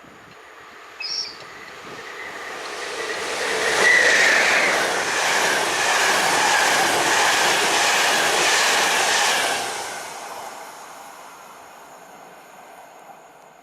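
A train passing by: it approaches, runs loud with rail noise and wheel clatter for about six seconds, then fades away into the distance. A short high-pitched tone sounds about a second in, before the train arrives.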